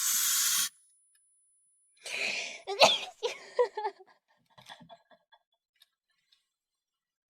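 A young woman sneezes once: a breathy intake from about two seconds in, then one sharp, loud sneeze, followed by a few short voiced sounds and some faint clicks. It opens with a brief burst of hiss.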